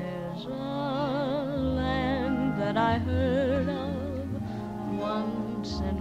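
Slow music: a sung melody of long held notes with wide vibrato over sustained low accompaniment.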